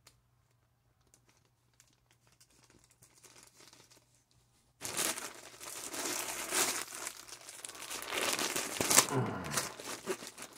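Tough plastic mailer bag being crinkled and torn open by hand. Quiet at first, then loud, ragged crinkling and tearing begins about five seconds in and continues.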